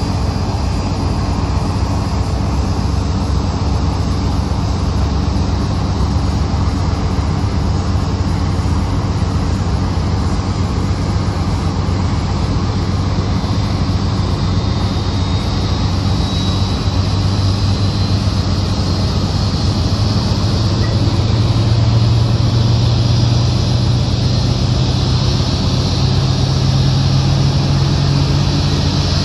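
Airbus A319 jet airliner and its tow tug during pushback: a loud, steady rumble. Over the last ten seconds a low hum rises in pitch and a high whine grows, as an engine begins to spool up for start.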